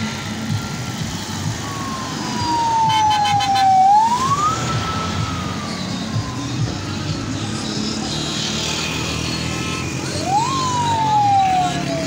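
Vehicle siren wailing three times: each call rises quickly and then glides slowly down in pitch. Under it is the steady rumble of slow-moving traffic.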